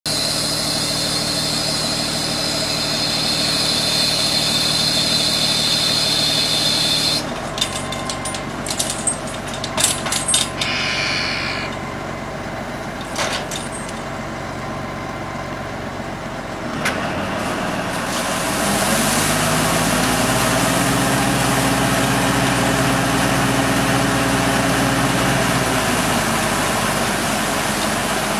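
Tractor engine running steadily while driving a PTO water pump, with a high whine over it at first. After a break with a few clicks and knocks, the engine runs again under a loud steady rush of water pouring out of the pump's outlet pipe.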